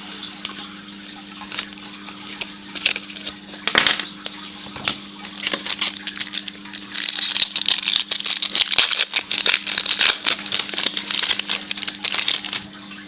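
Crackling and crinkling of a trading-card pack wrapper being torn open and handled, scattered at first and dense through the second half, over a steady low electrical hum.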